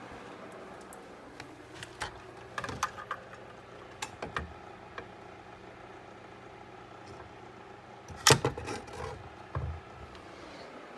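Scattered clicks and knocks over a steady low hum, the loudest a sharp knock with a short ring about eight seconds in.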